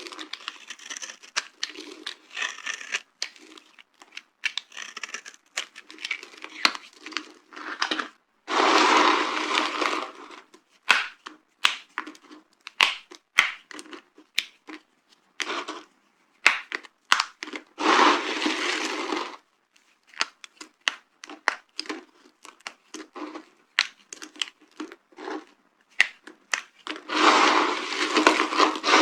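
Dry soap being crushed and broken apart by hand: many sharp cracks and snaps, with three longer crumbling crunches, about a third of the way in, past halfway and near the end.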